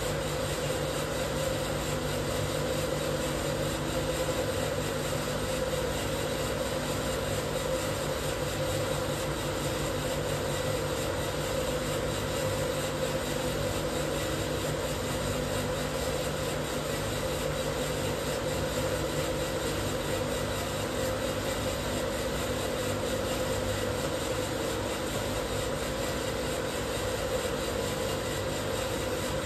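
Probat Probatone P12 Series 2 drum coffee roaster running steadily during a roast, a constant mechanical hum with a fine rapid flutter low down.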